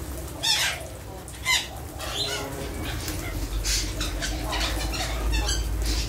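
A flock of parakeets gives short, harsh, high-pitched screeches, about five of them spread out, the loudest two near the start. Wings flap as birds take off and land among the flock.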